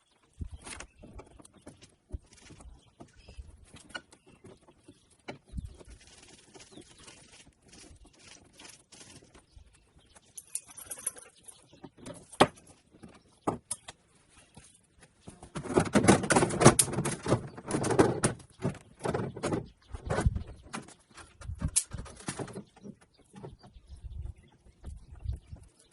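Scattered clicks, taps and knocks of hands working with parts and tools, with a few seconds of dense rattling and scraping about sixteen seconds in.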